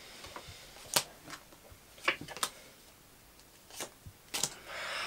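Playing cards being flicked and laid down one at a time onto a pile on a carpeted floor: a scattering of light, sharp card snaps, with a quick run of three a little past two seconds in.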